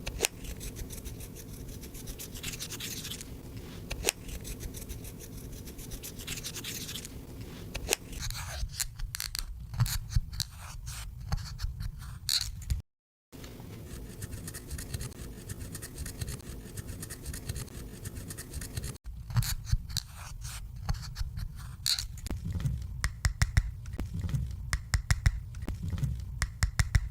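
Slime being worked by hand with makeup mixed in: a steady scraping and rubbing for several seconds, then quick runs of sticky crackling clicks as it is squished and stretched. The sound cuts out briefly about halfway through.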